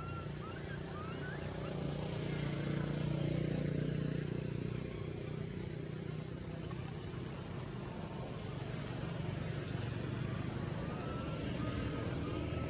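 Low, steady engine-like rumble, swelling a couple of seconds in, with a few faint short chirping calls near the start and again near the end.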